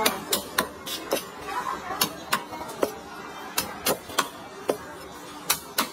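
Knife striking a cutting board again and again as meat is cut: about a dozen sharp, irregular knocks, over background chatter.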